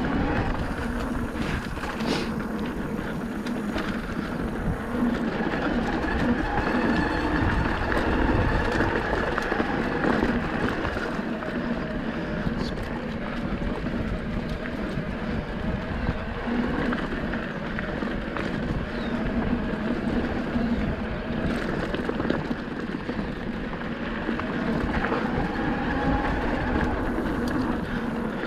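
Merida eOne-Sixty 800 electric mountain bike riding downhill on a dirt and gravel trail: continuous tyre rolling noise with small clicks and rattles from the bike.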